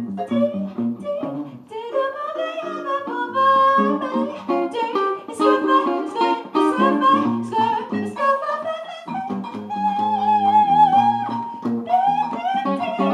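A small band playing live: plucked guitar with a singing voice carrying the melody.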